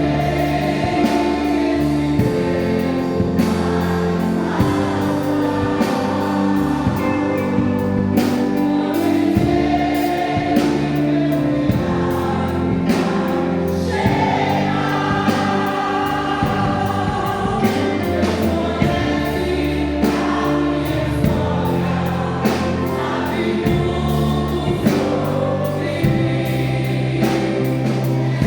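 A choir singing a gospel hymn with band accompaniment: sustained bass notes and chords under the sung melody, with a regular drum beat.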